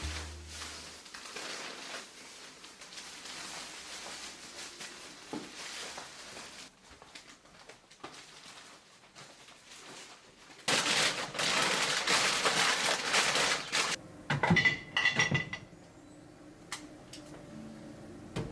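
Kitchen handling noises: dishes and cutlery clinking, with a loud rushing noise for about three seconds past the middle, followed by a few ringing clinks.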